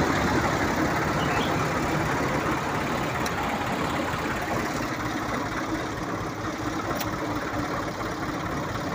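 A vehicle engine running steadily, easing off slightly in loudness.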